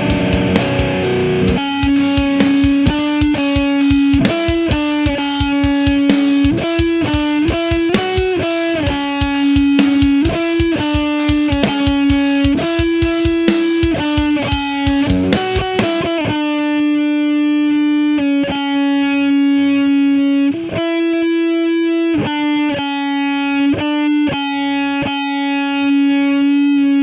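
Electric guitar playing a melodic line over a drum backing track. About halfway through the drums drop out, leaving the guitar alone on held, ringing notes.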